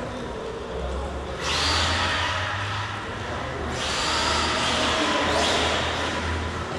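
Electric RC truck's brushless motor whining in three bursts of about two seconds each, each starting sharply as the throttle is punched.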